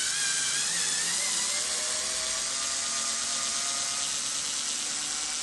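Makita 3.6 V pencil screwdriver's motor whining steadily under load as it drives a screw into a block of wood.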